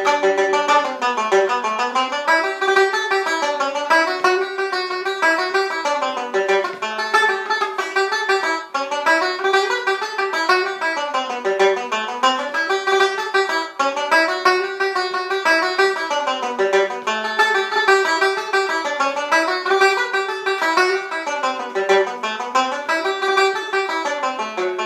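Solo banjo playing a fast Irish reel, a quick run of picked notes with the melody's phrases coming round again every few seconds.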